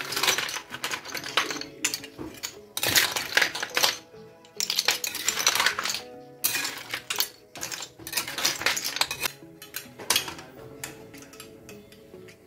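Small liswit seashells clattering and clicking against each other and a container, in about six bursts of rattling a second or so each, over soft background music.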